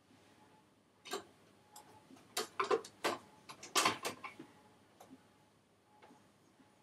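A quick run of sharp clicks and clacks from a person's hands working the buttons and parts of an audio playback machine that has glitched and won't start. The clicks are bunched in the middle, with a couple of fainter ones near the end.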